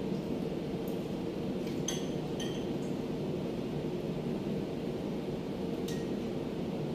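Spoons and forks clinking against dinner plates a few times, short ringing ticks over a steady low hum.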